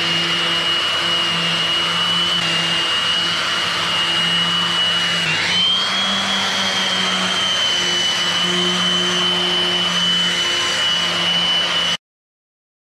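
Random orbital sander running on a cured epoxy and wood slab, hooked up to a dust extractor: a loud, steady whir with a high, steady whine over it. It stops abruptly near the end.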